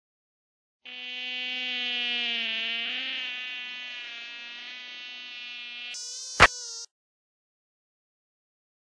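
Mosquito buzzing sound effect: a steady, thin whine with many overtones, dipping slightly in pitch partway through and stepping higher about six seconds in. A single sharp smack comes about six and a half seconds in, and the buzz cuts off abruptly just after.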